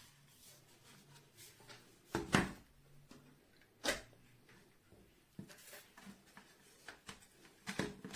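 A few faint, scattered clicks and knocks in a small room, the loudest about two and four seconds in, with a faint low hum coming and going between them.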